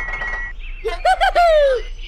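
Cartoon sound effects: a buzzing trill that stops about half a second in, then a short wobbling call that slides down in pitch.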